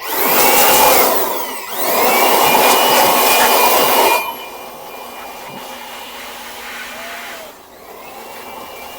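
Handheld electric air blower running, blowing dust out of an inverter's circuit board. Its motor whine rises as it spins up at the start and again after a brief dip near two seconds. The rush of air is loud for about four seconds, then drops to a much quieter, steady run.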